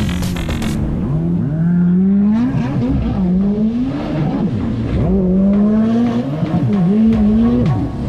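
Jet ski engine running under way, its pitch repeatedly rising and falling as the throttle is opened and eased off.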